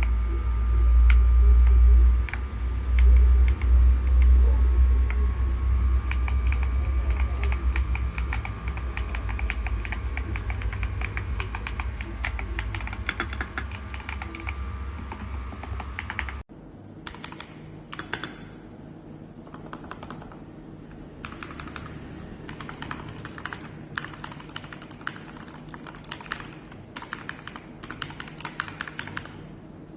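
Rapid typing on a ZIFRIEND ZT104 gasket-mount mechanical keyboard with silent switches, keys clicking in dense runs. For the first half a loud low rumble runs under the typing. It stops at a sudden cut about halfway through, after which the typing comes in short bursts with pauses.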